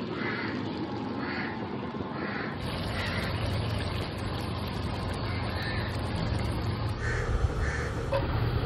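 Steady hiss of kofta curry simmering in a wok, with short bird calls repeating about once a second.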